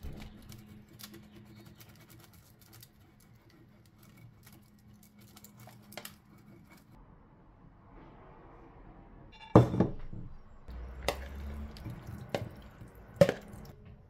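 Faint scraping and ticking as garlic is rubbed over crisp toasted bread slices held with tongs, over a steady low hum. In the second half, four sharp knocks and clicks, the loudest about two-thirds of the way through.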